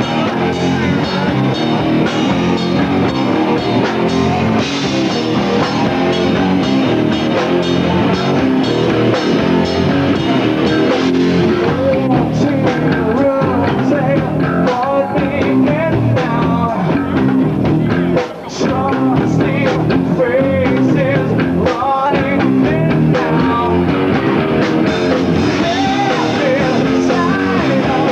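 A rock band playing live: electric guitars over a drum kit, with a brief break in the playing about two-thirds of the way through.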